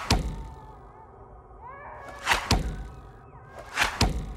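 Knife blades thunking into a corkboard: a sharp strike right at the start, then two quick pairs of strikes about a second and a half apart.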